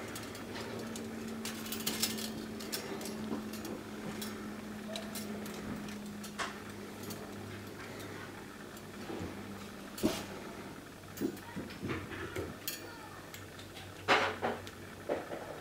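Thin metal strips of a wind spinner clinking and ticking against each other as it is handled and pulled open: scattered light clicks, with the sharpest about ten seconds in and a loud cluster near the end.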